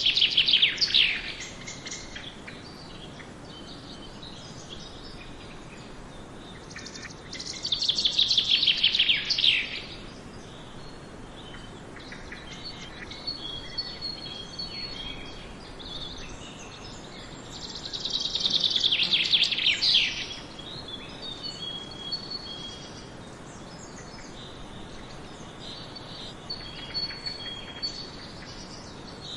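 Forest birdsong: one bird sings loudly about every ten seconds, each time a quick run of notes falling in pitch over two to three seconds, three times in all. Between these songs other birds call faintly with short high whistled notes over steady background noise.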